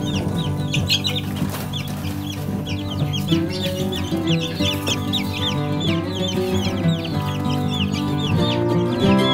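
Baby chicks in a brooder peeping constantly, many short high chirps overlapping each second, over background music.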